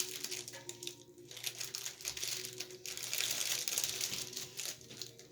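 Crinkling, rustling noise with many small crackles, loudest in the second half.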